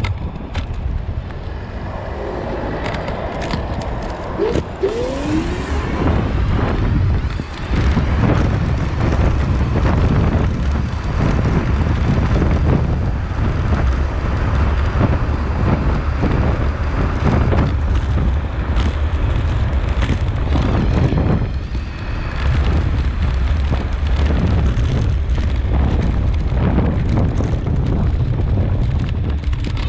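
Electric scooter ridden along asphalt, heard from a camera beside its front wheel: steady wind buffeting on the microphone and tyre rumble, with scattered knocks from bumps in the road surface. A short rising whine sounds about five seconds in.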